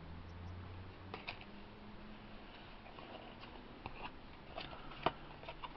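Faint, scattered clicks and taps of Pokémon trading cards being handled and flipped through, with the sharpest click a little after five seconds in.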